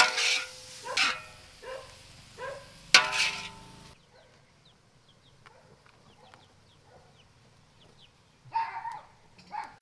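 Loud knocks and scrapes of hot stir-fried beef being served into a banana-leaf bowl, mixed with a few short animal calls, over the first four seconds. Then it turns quiet, with faint bird chirps and two brief rustles near the end.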